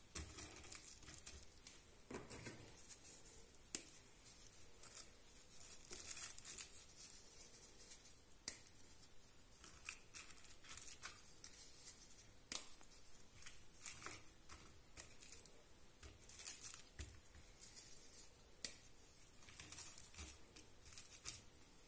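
Dry biscuits being snapped into pieces by hand and pressed into a cling-film-lined glass bowl: faint, scattered snaps, crackles and rustles.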